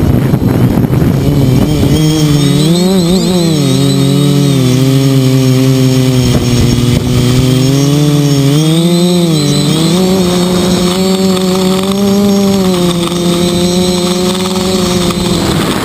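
Quadcopter's electric motors and propellers buzzing loudly right at the onboard camera, the pitch rising and falling as the throttle changes, with quick swings a few seconds in. A fainter high whine sits above the buzz.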